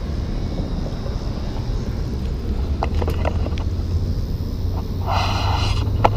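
Low rumble of wind on the microphone over a steady low hum, with a few faint clicks a few seconds in and a brief hiss near the end.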